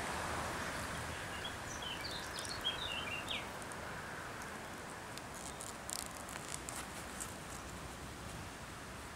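Outdoor ambience: a steady hiss of wind, with a bird's quick string of chirps about two seconds in, and a few light clicks and rustles of hands handling binoculars and a bag from about five seconds in.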